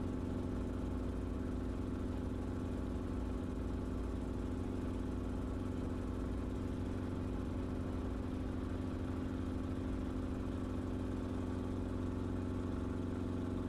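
Enstrom helicopter in flight, heard from inside the cabin: a steady, even drone of engine and rotors with a low hum.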